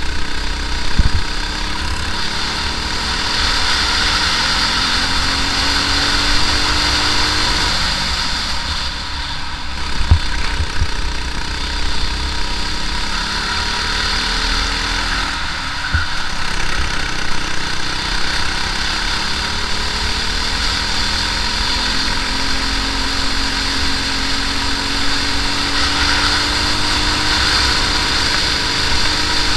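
Briggs & Stratton LO206 single-cylinder four-stroke kart engine running at racing speed, its pitch climbing along the straights and dropping sharply for the corners, with a few short knocks.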